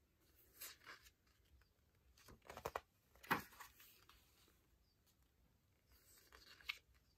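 Glossy pages of a photobook being turned by hand: faint, brief paper rustles and slides, the loudest one about three seconds in.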